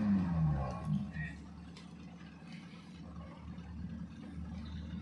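Off-road 4x4's engine dropping off a rev, its pitch falling over the first second, then running low and steady at idle.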